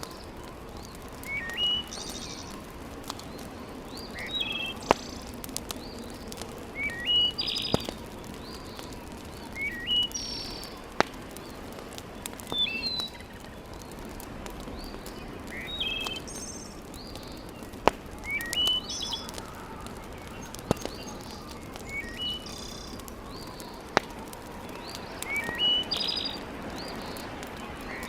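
A bird calling over and over in short phrases of quick chirps, about every two to three seconds, with a handful of sharp pops from a crackling wood fire in between.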